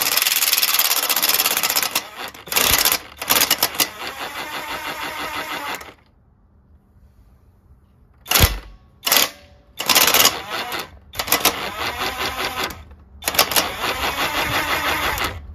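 Honda GCV lawn engine being turned over, with a rapid mechanical clatter and whir. It comes in two runs of several seconds with a short pause between. The engine spins with no compression, which the owner takes for a broken connecting rod.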